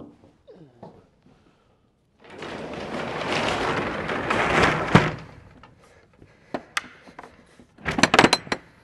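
A box truck's rear roll-up door rolling down with a rattle for about three seconds and slamming shut about five seconds in. Near the end, a quick run of metallic clinks comes from the lift gate's latch and chains.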